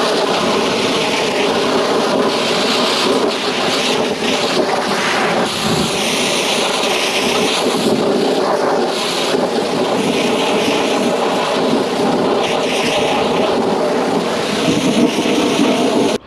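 Pressure washer running steadily, its high-pressure spray hissing against the tractor's wheels and sheet metal. The hiss rises and falls as the wand moves.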